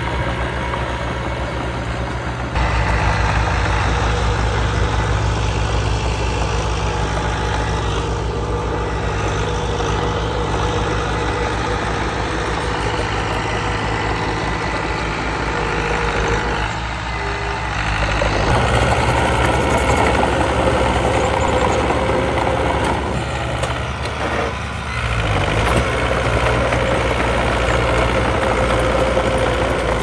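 Diesel engine of an earthmoving machine running steadily. Its note changes abruptly about two and a half seconds in and again about eighteen seconds in.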